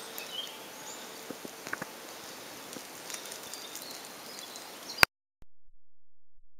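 Woodland outdoor ambience: a steady hiss with scattered small clicks and crackles and a few brief high chirps. About five seconds in, a sharp click and the sound cuts off to silence.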